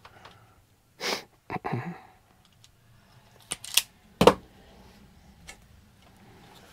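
Hand-tool and wire-handling noises at a workbench: two short rushing noises about a second in, then a few sharp clicks near four seconds, the last one the loudest, as wire strippers work on a wire.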